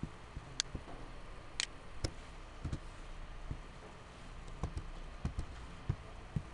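Single keystrokes on a computer keyboard, about a dozen separate clicks with uneven pauses between them, as when pressing editing keys one at a time rather than typing steadily.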